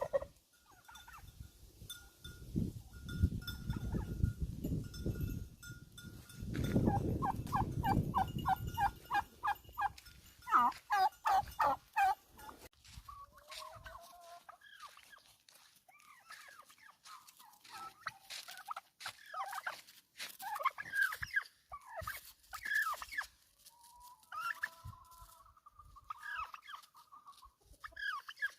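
Farmyard fowl calling in short pitched calls, with a fast rattling run of repeated notes a few seconds in. A low rumbling noise underlies the first third.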